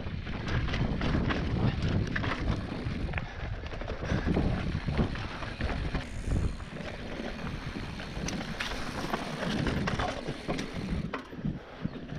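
Mountain bike descending a rough trail: tyres rumbling over the ground and the bike rattling with many sharp knocks, while wind buffets the microphone.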